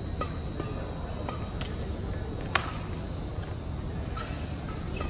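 Badminton rally: several sharp racket strikes on the shuttlecock, the loudest about two and a half seconds in, with short squeaks of court shoes over a steady hall hum.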